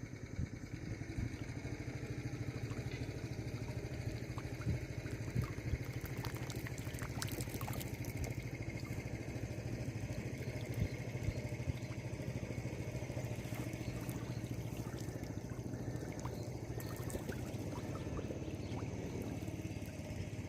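A small engine running steadily at an even pitch, with water trickling and splashing and scattered light clicks over it.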